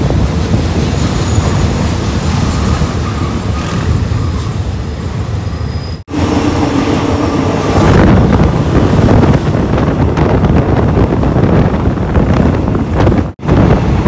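Passenger train in motion, heard from an open carriage door: a steady rumble of wheels on the track mixed with wind on the microphone. The sound cuts out abruptly for an instant twice, about six seconds in and near the end, and it is louder from about eight seconds in.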